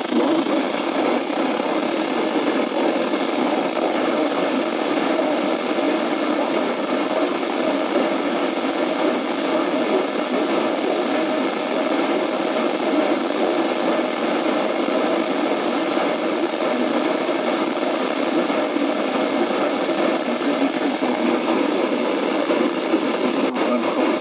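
Steady radio static: an even hiss from a weather radio receiver, with no voice and no alert tones.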